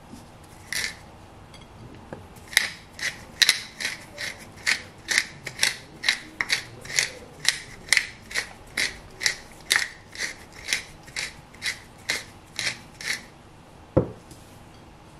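Wooden pepper mill grinding peppercorns: one short twist, then a steady run of rhythmic ratcheting grinds at about two twists a second. A single sharp knock near the end.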